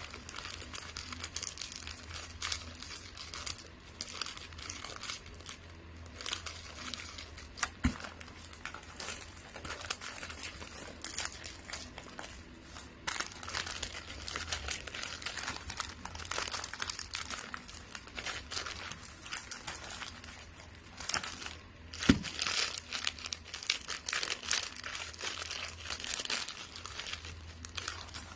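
Gift-wrapping paper crinkling and rustling as it is handled and folded around a box, with a couple of sharp taps, the loudest about 22 seconds in.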